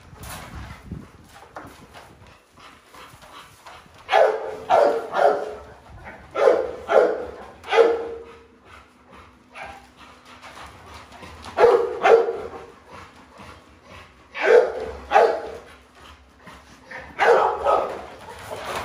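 XL American Bully dogs barking in about five bursts of two or three barks each, a few seconds apart, excited by the raw chicken they are about to be fed.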